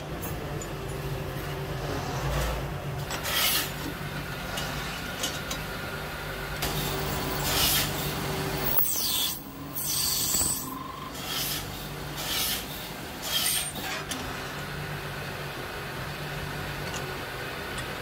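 Metal lathe running with a steady motor hum while its cutting tool turns a brass rod, giving several short rasping bursts of cutting noise through the middle.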